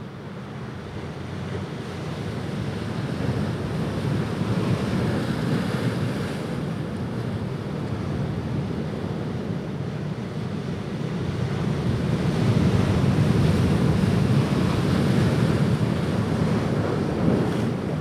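Ocean surf breaking on the shore: a steady wash of noise that swells twice, a few seconds in and again from about twelve seconds in, as waves come in.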